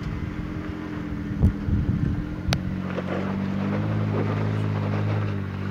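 Jeep Wrangler JK Unlimited's engine running under load at low speed as it crawls up a rock ledge, steady in pitch and growing louder about halfway through. A short knock comes about a second and a half in.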